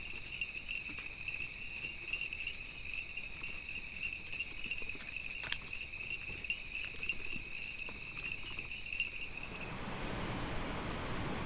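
Steady high-pitched trilling of night insects, one continuous chorus holding a single pitch, with a few faint clicks. Near the end it cuts off suddenly and gives way to a steady, even hiss.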